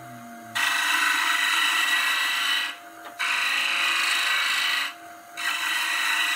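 Bowl gouge cutting a spinning wood blank on a lathe: three cutting passes of about two seconds each, with short pauses between, over the lathe's steady hum. The first pass starts about half a second in and the third is still going at the end.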